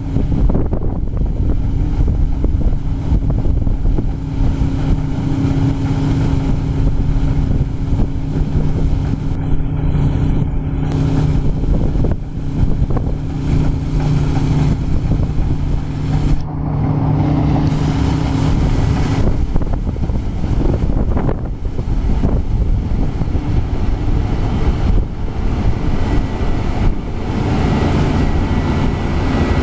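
Diesel engine of harvest machinery running steadily, its hum changing about two-thirds of the way through, with wind buffeting the microphone.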